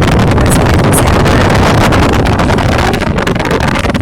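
Pickup truck driving on a flooded road: a loud, steady rush of tyres, engine and splashing water, with wind buffeting the phone's microphone. The noise eases a little about three seconds in.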